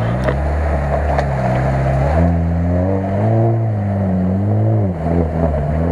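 Lada Niva engine revving as the 4x4 drives through deep mud. The revs climb about two seconds in and drop back about five seconds in, then run unevenly.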